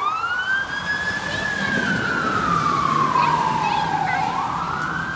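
Fire truck siren sounding a slow wail: the pitch rises over about a second and a half, falls over nearly three seconds, then begins to rise again near the end.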